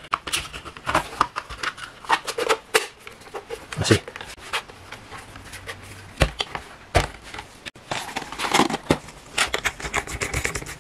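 Plastic clicks and taps from a white PVC cable channel being handled as its lid is pressed onto the base, with a couple of sharper knocks about six and seven seconds in.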